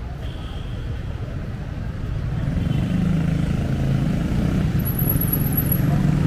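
Street traffic at a city intersection: motor vehicle and motorcycle engines running, growing louder about halfway through. A brief, very high-pitched squeal sounds near the end.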